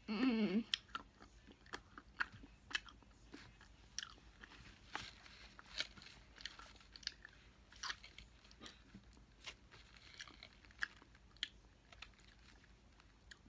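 A child chewing a chocolate chip with chocolate cake close to the microphone, with scattered sharp crunches and mouth clicks, about one or two a second.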